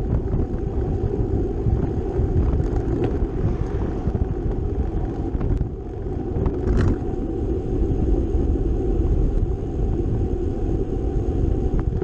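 Steady rumble of wind and road noise on the microphone while riding, with a few faint clicks.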